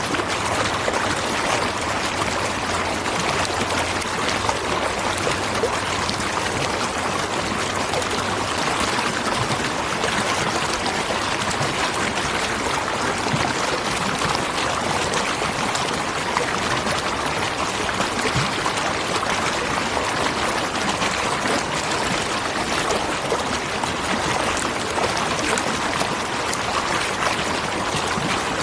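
Waterfall: falling water rushing and splashing in a steady, unbroken wash of noise.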